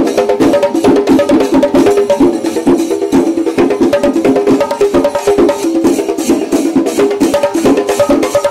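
Kerala temple festival percussion ensemble: rapid, sharp drum strokes over a wind instrument playing short repeated notes.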